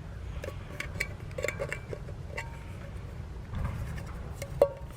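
Light metallic clicks and clinks from a cheap folding multi-tool being handled, with one sharper click that rings briefly near the end.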